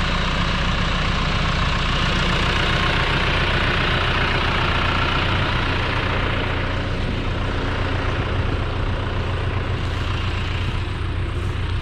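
Tractor engine running steadily at a low, even idle.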